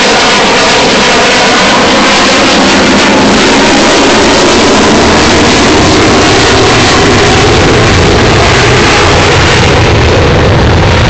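F-15 fighter's twin jet engines roaring very loudly as it flies past. Near the end the higher hiss fades while a deeper low rumble grows.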